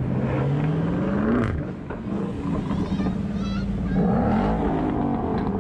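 Car engines driving past: one revs up, its pitch rising over about a second and a half. Another car's engine comes closer and runs from about four seconds in.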